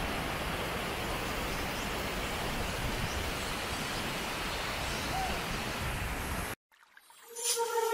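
Steady rushing hiss of flowing water, which cuts off abruptly about six and a half seconds in. Music begins near the end.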